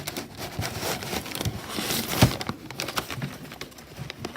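Paper packing rustling and crinkling as it is handled and pulled from a cardboard box, with small knocks of handling and one sharper knock a little after two seconds in.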